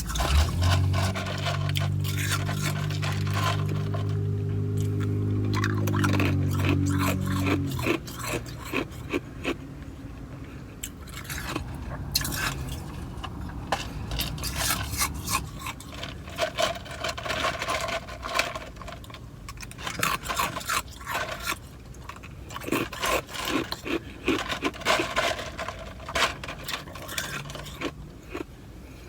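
Ice being crunched and chewed in the mouth, a rapid run of short crisp cracks. For about the first eight seconds a louder steady low hum runs under it and then stops.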